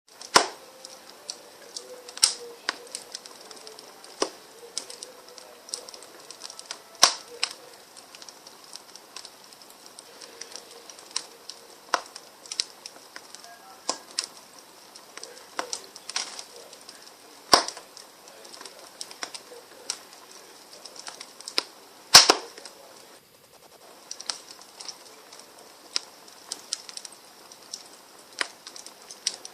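Fire crackling: an irregular run of small clicks and pops over a soft hiss, with an occasional louder sharp snap every few seconds.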